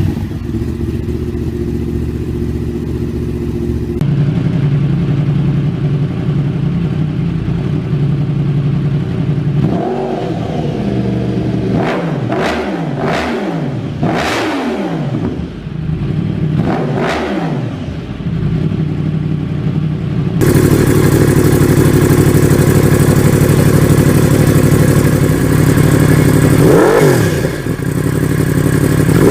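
Yamaha R1 inline-four engine running through aftermarket exhausts, idling and blipped sharply several times, each rev rising and falling quickly. The sound changes abruptly at about 4 s and again about 20 s in, as one bike's exhaust gives way to another's, and the last clip idles louder before one more rev near the end.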